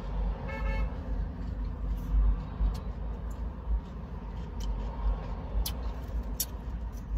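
Steady low rumble of a car, with a short horn-like toot about half a second in. Several light clicks and taps follow as food containers are handled.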